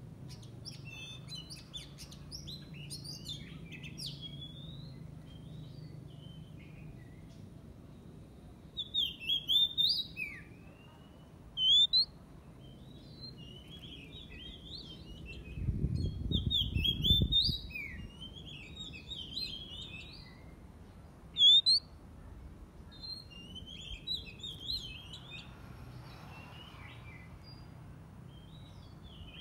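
Caged decoy oriental magpie-robin singing: a long run of varied, quick whistled phrases with short gaps, and two sharp loud notes along the way. A brief low rumble comes about halfway through.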